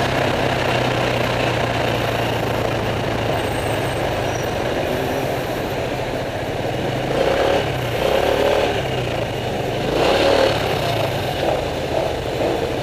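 Motorbike engine running steadily in slow, heavy traffic, with the engine and traffic noise swelling twice in the second half.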